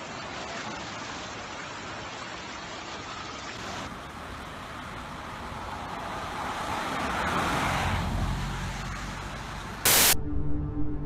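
Steady rushing noise of floodwater, cut once partway through and swelling a little later on. Near the end there is a brief loud crackle, then music with sustained, ominous tones begins.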